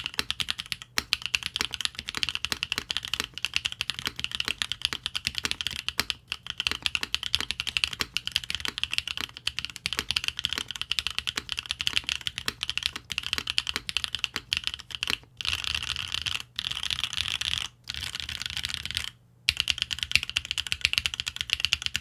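Fast typing on a Qwertykeys Neo65 mechanical keyboard in gummy O-ring mount with a carbon fiber plate and no foam, fitted with Neo linear switches and GMK keycaps. It makes a continuous patter of keystrokes with a few brief pauses. The sound is even, with no pinging or hollowness.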